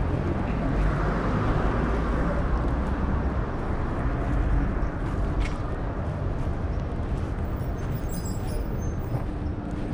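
Street traffic noise: passing cars with a deep rumble, and a sharp click about five and a half seconds in.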